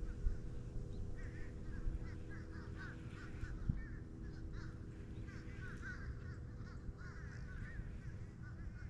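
Many birds calling from the reed marsh in short, repeated calls, over wind rumble on the microphone and a faint steady hum, with a single knock about halfway through.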